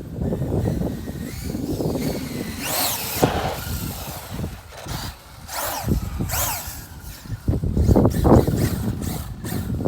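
Electric drive of a Traxxas UDR 1/6-scale RC truck on 6S, whining sharply up and down in pitch several times as it accelerates and slows, over a continuous rough low rumble.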